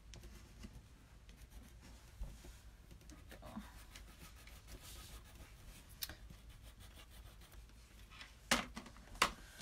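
Faint scratching of a colouring pencil on paper. A few sharp taps come near the end.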